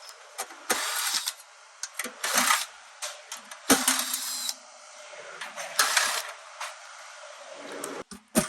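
Short bursts of scraping and clicking from tools and metal parts being worked, several separate bursts a second or so apart, as a PTAC unit is taken apart to replace its broken evaporator blower wheel.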